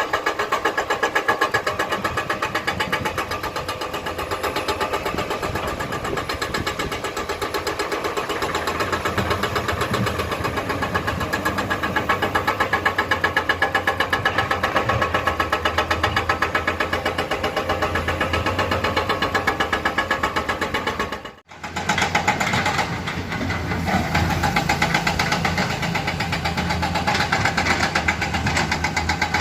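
Heavy diesel engine of earthmoving machinery running steadily with a fast, even pulse. It breaks off suddenly for about half a second some 21 seconds in, then carries on.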